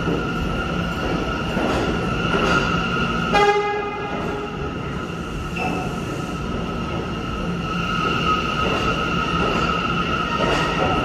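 R179 subway train running along the station platform: a continuous rumble of wheels on rail with a steady high whine. A short horn blast sounds about three and a half seconds in.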